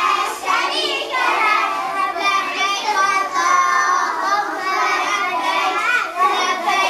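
A group of young children singing together as they walk, many voices overlapping.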